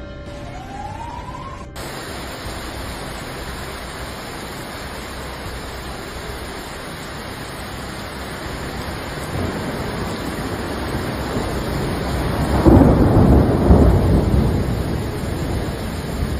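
Thunderstorm: the steady hiss of heavy rain, starting abruptly about two seconds in, with a low rumble of thunder that swells loudest about twelve to fourteen seconds in.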